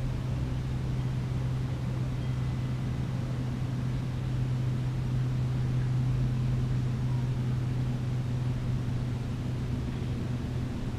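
A steady low mechanical hum over a faint background hiss, with a second, higher hum joining about halfway through.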